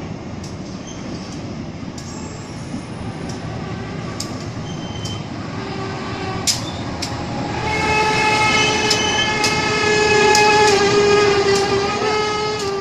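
A CC 201 locomotive (GE U18C diesel-electric) runs slowly past with its wheels clicking over the rail joints. For about the last five seconds a steady single-note horn sounds.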